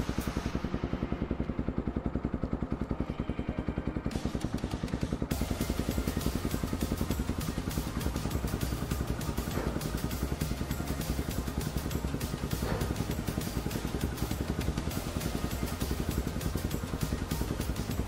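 Motorstar Xplorer Z200 II motorcycle engine idling steadily in neutral, an even rapid putter. The bike is nearly new, about four months old with some 2,100 km on it.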